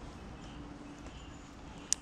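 Quiet outdoor background with a faint steady hum and a few faint high chirps, broken by one short sharp click near the end.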